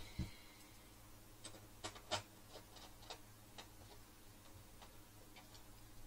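Faint, irregular small clicks and taps of hands handling cable connectors and parts in a DVR's open metal chassis, the loudest about two seconds in, over a faint steady hum.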